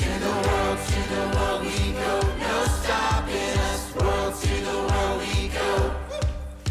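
Background song with voices singing together over a steady beat of about three beats a second.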